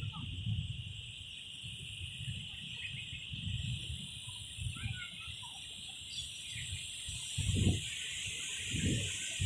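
Insects chirring steadily in a high, even drone, with a few faint bird chirps and gusts of wind rumbling on the microphone.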